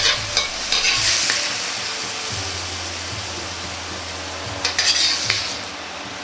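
Metal ladle scraping and clinking against a wok as stir-fried vegetables are pushed out onto a plate, over a steady sizzling hiss from the hot wok. The scraping comes in short clusters, at the start, about a second in and again around five seconds.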